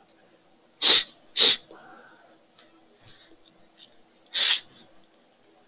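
Three short, sharp, hissy breath noises from a person: two in quick succession about a second in and one more near the end. A faint steady hum runs underneath.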